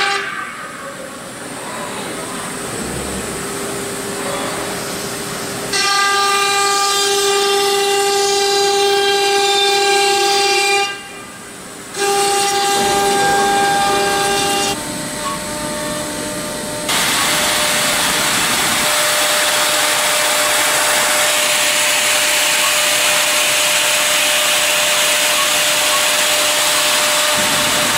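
CNC router spindle whining steadily as its cutter mills a wooden mold, the whine changing pitch and loudness abruptly several times. From about two-thirds of the way through, a loud hiss of the bit chipping through the wood dominates.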